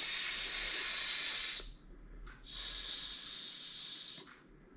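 A man's voice making a long, drawn-out 'sss', the /s/ phoneme said like a snake's hiss, twice, the second a little quieter.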